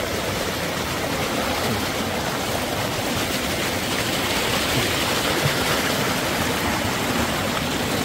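A rocky stream rushing over small cascades between boulders: a steady rush of water.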